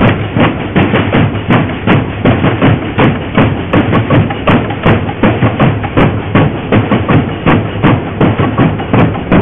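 Street drum band of snare drums and bass drums playing a steady, driving rhythm, with heavy accents about twice a second.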